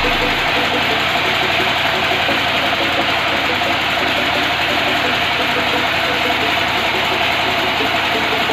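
Engine-driven wood saw running steadily, with a fast even engine pulse under a dense mechanical noise.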